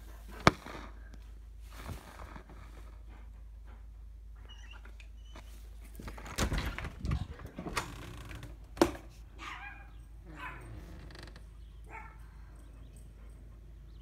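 Handling noises: a sharp click about half a second in, a cluster of rustling knocks a little past the middle, and another sharp click soon after. Then a few short, high whines from an excited dog.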